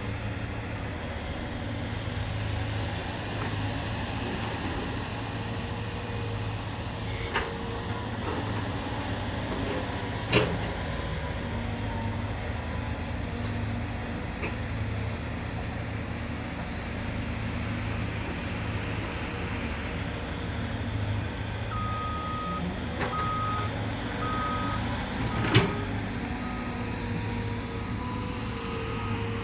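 Hydraulic excavators' diesel engines running steadily under load, with a few sharp metal clanks, the loudest about ten seconds in. Over the last seven seconds a backup alarm beeps about once a second.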